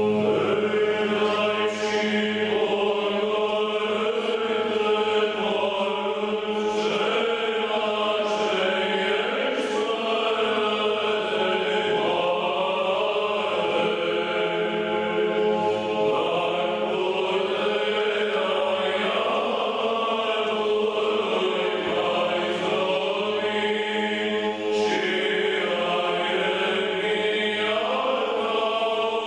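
Orthodox church chant: voices singing a melody over a steady held drone note (the ison).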